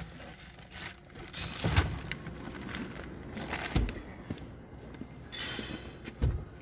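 Someone climbing out of the driver's seat of a Lexus LS460 with the engine switched off: rustling and handling of the seat and door, with a few dull thumps, the loudest near the end.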